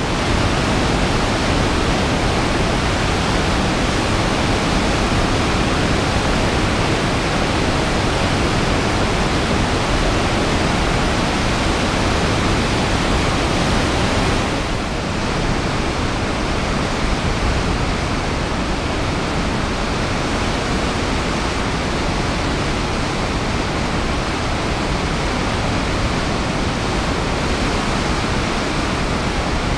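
River rapids in heavy, churning flow: loud, steady rushing whitewater. The sound shifts slightly about halfway through.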